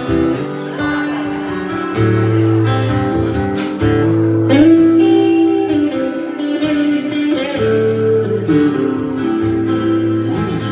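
Live country band playing an instrumental song intro, led by guitars, with acoustic strumming, a sliding guitar line and a steady bass underneath.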